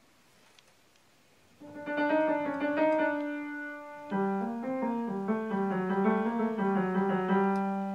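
Upright piano being played: after a second and a half of faint room tone, several notes are struck together and held, and a second, lower phrase starts about four seconds in.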